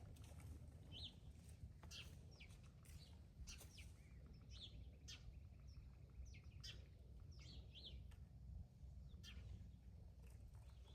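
Faint songbirds chirping in the background, many short chirps and quick little glides scattered throughout, over a steady low rumble.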